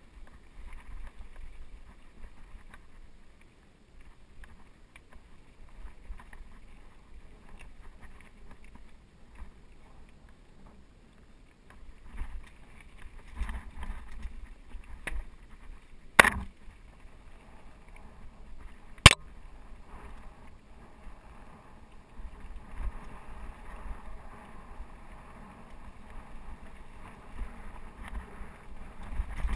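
Mountain bike ridden over rocky dirt singletrack: tyres rolling and rattling over dirt and loose rock, with a low rumble that swells and fades. Two sharp knocks about sixteen and nineteen seconds in.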